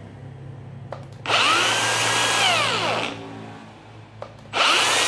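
Makita cordless variable-speed 125 mm angle grinder run with no load on its top speed setting, twice. Each run starts with a switch click and a quick spin-up to a steady high whine. The first run coasts down with a falling whine after about two seconds, and the second starts about four and a half seconds in.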